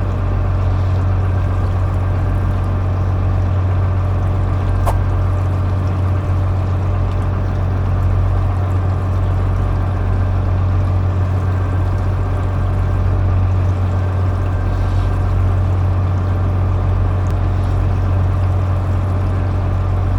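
Fishing boat's motor running steadily, a constant low hum, with one brief click about five seconds in.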